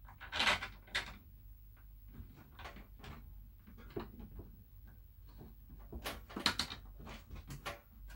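Irregular clicks, knocks and scrapes of hands handling the fan cooling unit's housing and screws as it is slid under a GoodWe ET inverter and fastened to its brackets, loudest about half a second in and again around six to seven seconds in.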